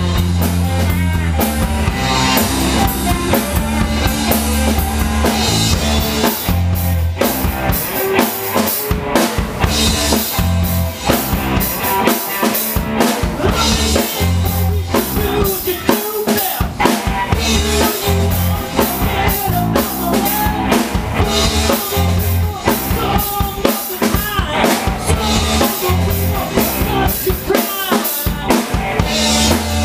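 Alternative rock band playing live: drum kit with bass drum, snare and cymbals, under electric bass and electric guitar, the drums most prominent.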